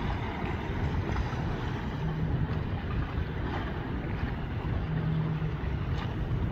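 Wind buffeting the microphone over open water, a steady rumbling rush. A low steady hum comes and goes twice.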